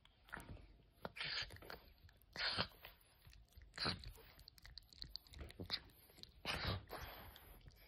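French bulldog puppy chewing and biting on a toy zebra, with several louder bouts of crunching among small clicks of teeth on the toy.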